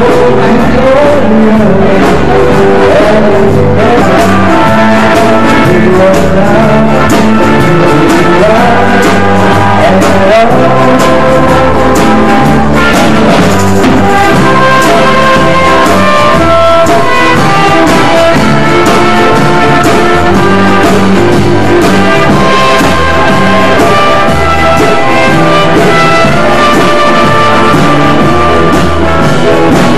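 Live band music with electric guitar, a bass line and drums keeping a steady beat.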